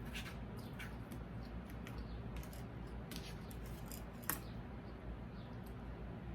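Eating sounds close to the microphone: soft, irregular chewing clicks and mouth noises, with one sharper click about four seconds in.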